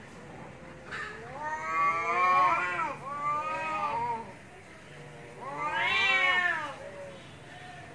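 Two cats yowling at each other in an angry standoff: a long wavering yowl starting about a second in and lasting some three seconds, then a second, louder yowl rising and falling about five and a half seconds in.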